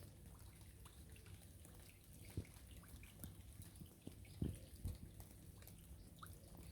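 Faint, scattered raindrops dripping and plinking on a river, with a few soft low thumps about two and a half and four and a half seconds in.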